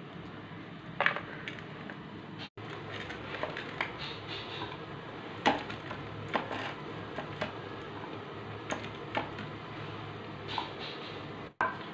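Cashew nuts and raisins frying in oil in a nonstick pan: a low steady sizzle with scattered small pops and clicks.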